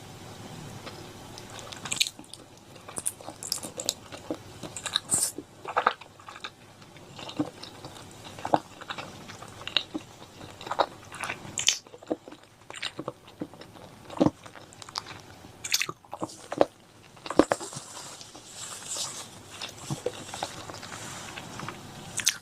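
Close-up eating sounds of a person chewing chicken curry and rice: irregular wet mouth clicks and smacks, several a second.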